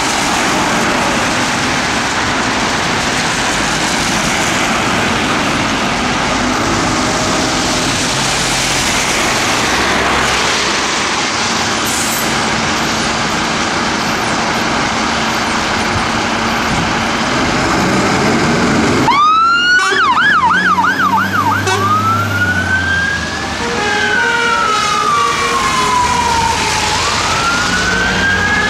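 Heavy rain hissing on wet ground with traffic, and the diesel engine of a Dennis Sabre fire engine as it pulls out. About two-thirds in, its siren starts with a quick rising wail and warbles rapidly for a couple of seconds, then settles into a slow rising and falling wail.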